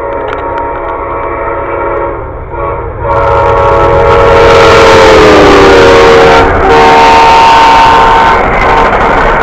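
Amtrak diesel locomotive sounding its multi-note horn at a grade crossing as the passenger train passes at speed. The horn chord drops in pitch as the locomotive goes by, under the loud rush of the cars rolling past.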